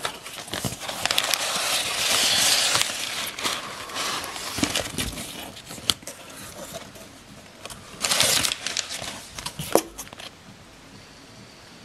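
Crumpled brown packing paper rustling and crinkling as a cardboard box is handled, with a few light clicks and taps. The rustle is loudest for a couple of seconds about a second in, and again in a short burst about eight seconds in, then dies down near the end.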